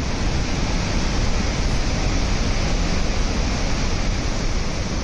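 Water pouring through the open spillway gates of the Sardar Sarovar dam, a steady, loud rushing of falling and churning water.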